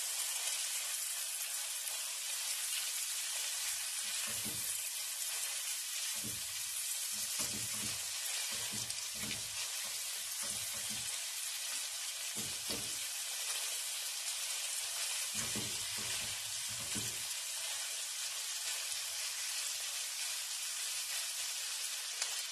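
Diced chicken thighs sizzling steadily in butter in a nonstick skillet as they brown. A silicone spatula stirring them knocks and scrapes against the pan off and on through the middle of the stretch.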